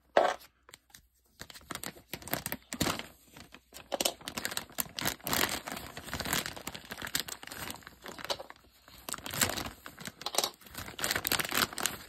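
Plastic mailer bag and its inner plastic wrapping being torn open and crinkled by hand, in irregular rustling, ripping bursts, with one loud short burst just after the start.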